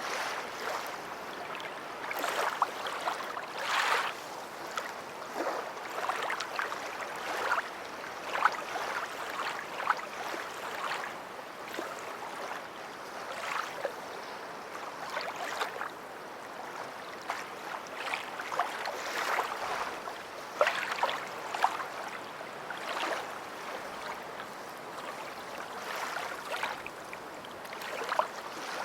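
Small waves lapping and splashing at the shore of a beach: a steady wash of water with frequent irregular splashes.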